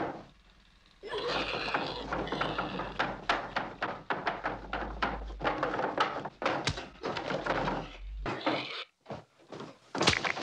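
Horror-film soundtrack played from a DVD surround track: a sledgehammer-attack scene, with a quick run of knocks, thuds and scrapes over a low hum, then a few sharp knocks near the end.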